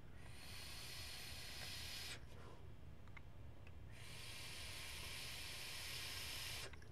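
Two long draws on a Horizon Tech Vertex Plus rebuildable tank atomizer firing at 50 watts on a standard coil: a steady hiss of air and vapour through the tank for about two seconds, a pause, then a second hiss of about two and a half seconds.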